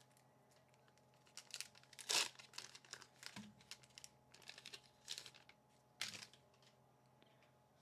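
Foil wrapper of a Magic: The Gathering collector booster pack crinkling and tearing as it is opened. Soft, scattered rustles that die away about six seconds in.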